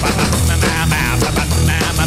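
Loud rock music with guitar and a steady beat, cutting in abruptly.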